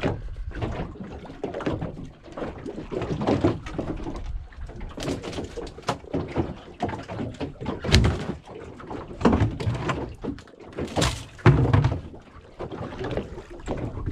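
Irregular knocks and thuds against a small fishing boat, the loudest about 8 and 11 seconds in.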